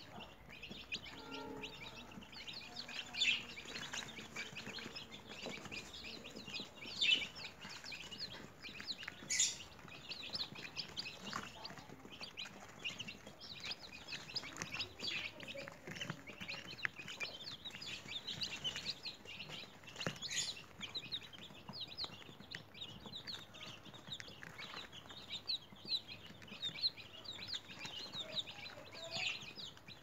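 A brood of newly hatched chicks peeping non-stop, many short high peeps overlapping, with a few louder ones standing out now and then.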